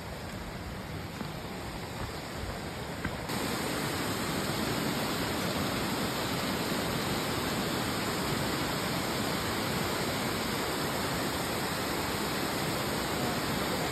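Mountain stream cascading over rocks, a steady rush of water that gets louder about three seconds in.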